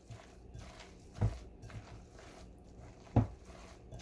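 Hands massaging salt into shredded zucchini in a glass bowl, with two dull thumps about two seconds apart, about a second in and near the end, as the pressing bumps the bowl against the countertop.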